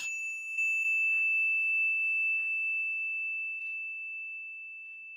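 A single high, bell-like ding struck at the start, ringing on as one steady tone and slowly fading, with a few faint soft swishes under it.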